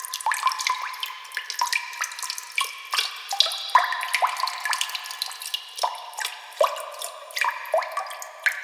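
Water dripping sound effect: irregular drops plinking into water, several a second, each a short blip that rises in pitch.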